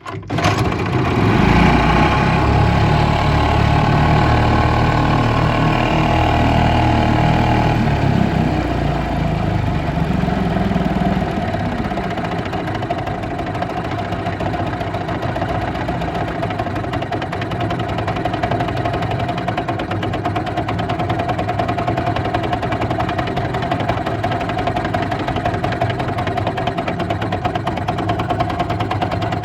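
1947 Mercury KE3 Comet 3.6 hp two-stroke outboard motor running steadily, heavier and louder in the low end for the first dozen seconds before settling into an even drone.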